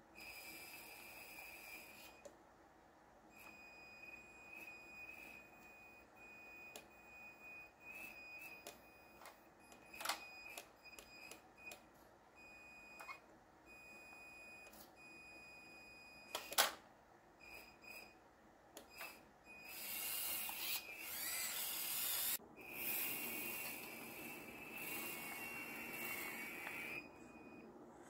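Electric drive motors and lift servo of a radio-controlled Cat skid steer loader, a high steady whine that starts and stops as the machine drives and works its forks. There are sharp knocks about ten seconds in and, loudest, a little after the middle.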